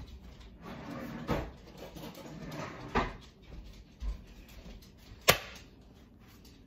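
Kitchen drawer and cupboard sounds while a spoon is fetched: a few knocks and clicks, the sharpest about five seconds in, with quieter rummaging between.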